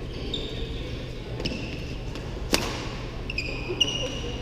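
Athletic shoes squeaking on a badminton court floor: several short, high chirps, with one sharp smack about two and a half seconds in.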